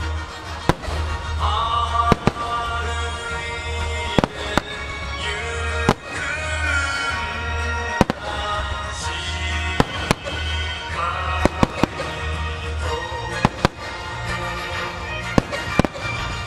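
Aerial firework shells bursting in sharp bangs, many at irregular intervals and some in quick clusters, over steadily playing music.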